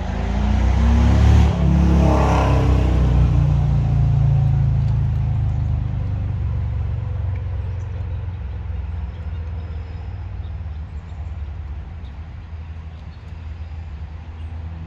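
Honda EB5000i inverter generator's engine running: its revs climb sharply over the first two seconds, then settle to a steady running note that eases slowly lower.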